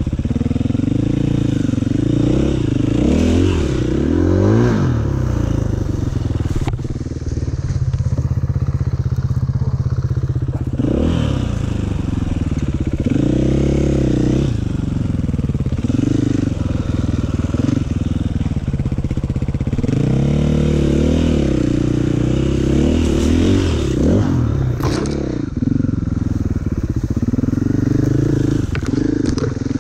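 Four-stroke single-cylinder enduro motorcycle being ridden, its engine revving up and dropping back again and again as the throttle is worked, with a few sharp knocks.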